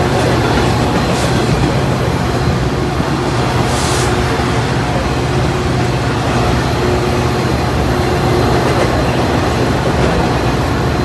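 BNSF double-stack intermodal freight train rolling past on the adjacent track: a loud, steady rumble of wheels on rail and container cars. A standing Metra diesel commuter locomotive's engine runs steadily underneath. A brief hiss comes about four seconds in.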